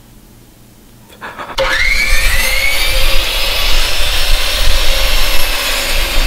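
A motor spins up with a short rising whine about a second and a half in, then runs loud and steady with a noisy, rasping character.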